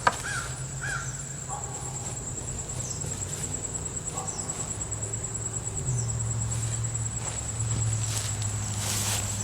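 Insects trilling in a steady high-pitched drone over a low steady hum that grows louder about six seconds in. There is a sharp click at the start and a few knocks near the end.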